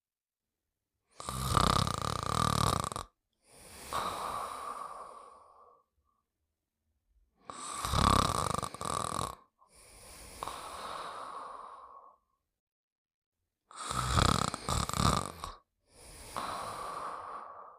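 Snoring, three slow breath cycles about six seconds apart. Each is a loud, rattling snore of about two seconds followed by a quieter, whistling breath, with silence in between.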